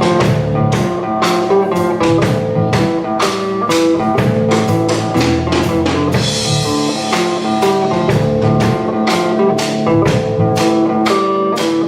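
Instrumental break of a live song: guitar playing with drums keeping a steady beat of about two strikes a second, with a cymbal wash about six seconds in.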